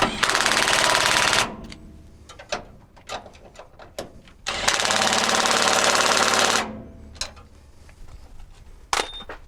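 Power impact wrench running in two bursts, one about a second long and one about two seconds long near the middle, driving fuel tank mounting bolts tight. A few light clicks of tools and metal come between the bursts.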